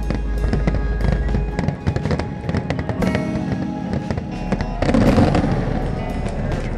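Aerial fireworks shells bursting, with many sharp pops and crackles, over music playing along with the show. The loudest burst comes about five seconds in.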